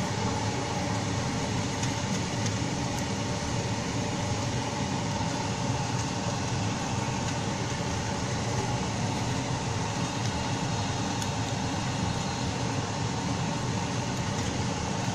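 Red chilli paste frying in oil in a nonstick pan on high heat: a steady sizzle over a constant hum with a faint tone in it.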